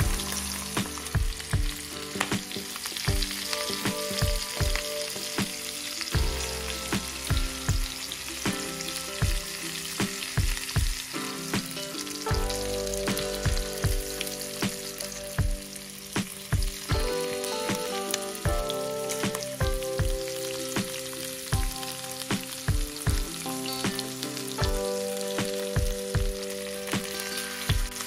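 Chicken drumsticks sizzling as they fry in hot oil in a nonstick pan over high heat. Frequent sharp clicks and knocks come as metal tongs turn the drumsticks against the pan.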